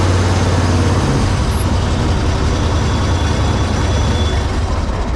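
Vehicle engine running steadily and loud, its low hum changing in tone about a second in.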